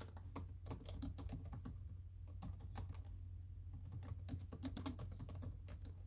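Typing on a laptop keyboard: an irregular run of light key clicks throughout, over a faint steady low hum.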